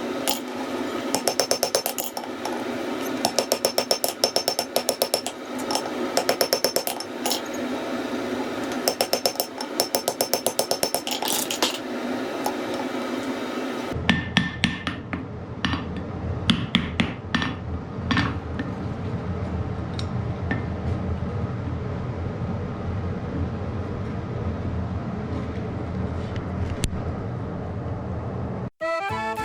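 Hammer striking hot iron in quick runs of light, ringing blows. About halfway through, the blows turn to scattered single knocks over a steady low noise.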